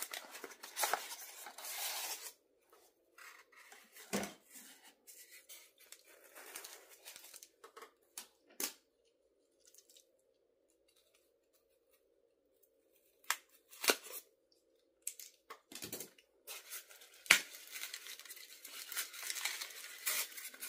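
Gift-wrap paper being torn and rustled as a wrapped present is opened, in bursts near the start and over the last few seconds, with scattered clicks and taps between and a quiet pause in the middle.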